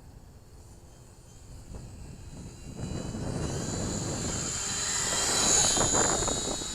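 Micro RC model P-38's twin small electric motors and propellers whining high as the plane passes close, swelling from about three seconds in to a peak and then fading.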